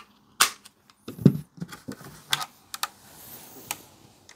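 Handling clicks and knocks from a fixed-blade knife and its Kydex sheath: about six sharp, separate clicks, with a heavier knock about a second in.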